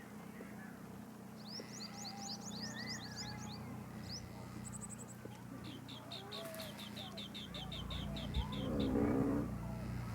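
Small birds chirping: quick runs of short, high, rising chirps, then a rapid, even trill of notes. Near the end a louder, lower sound rises over them.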